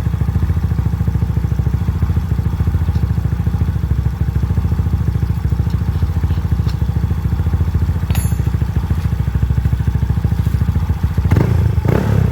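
Yamaha Mio i 125 scooter's single-cylinder four-stroke engine idling steadily through a REV aftermarket exhaust pipe, its adjustable outlet set to the middle position of about 45 degrees. The exhaust note is fairly quiet and not very loud.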